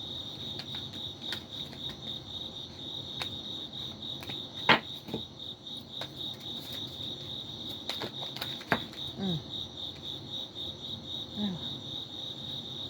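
A cricket chirping steadily in fast, even pulses, with a few sharp taps over it, the loudest about a third of the way in.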